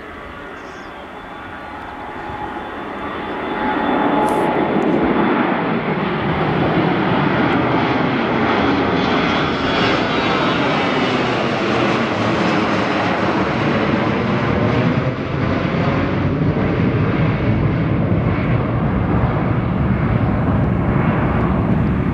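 Bombardier Global 5000 business jet's twin Rolls-Royce BR710 turbofans at takeoff power as it climbs out and passes low overhead. The jet noise swells over the first four seconds, then stays loud and steady, with a slowly shifting whoosh as it goes over.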